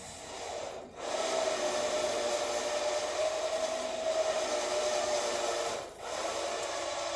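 Flatbed recovery truck's hydraulic pump running: a steady whine with hiss that starts about a second in and dips for a moment near the end before picking up again.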